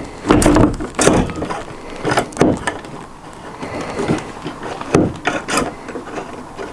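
Knocks and rubbing from a travel trailer's fold-out counter extension being handled as its support leg is set and locked into place. There are several separate clunks, with a quieter stretch in the middle.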